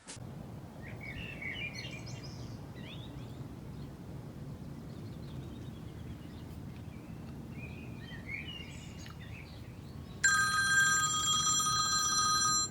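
Quiet outdoor background with birds chirping now and then. About ten seconds in, a telephone starts ringing: a loud, steady electronic ring for a couple of seconds, the incoming call being put through.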